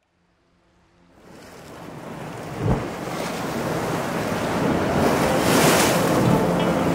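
Sea surf and wind, fading up from silence over the first couple of seconds, with a low thump about three seconds in and a louder wash of breaking waves near six seconds.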